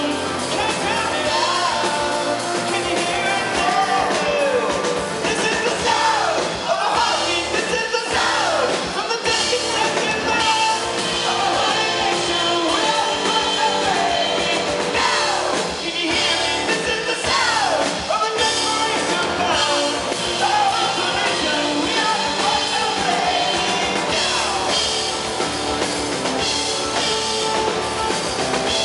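Live rock band playing loudly with a male lead singer, drum kit and electric guitars.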